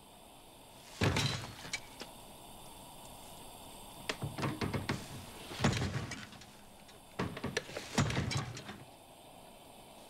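A foot kicking against a wooden desk: a series of heavy thumps that come irregularly, some single and some in quick rattling clusters.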